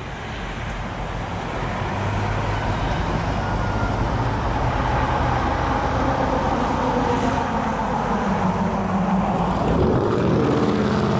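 Diesel engines of CSX F40PH passenger locomotives running as the units pull slowly ahead toward the listener. The sound grows louder over the first couple of seconds, and the engine note rises and changes near the end.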